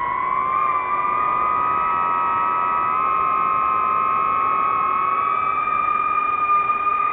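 DJI FPV drone's motors and propellers whining at a steady high pitch, the pitch shifting slightly up and down with the throttle.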